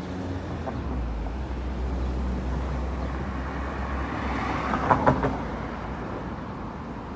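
Steady low traffic rumble that swells about four to five seconds in as a vehicle passes, with a few sharp clicks at the peak.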